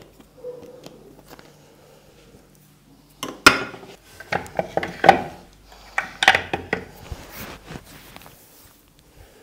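Quick clusters of sharp taps and clicks from a head massage, coming in three main bursts through the middle, then tapering off.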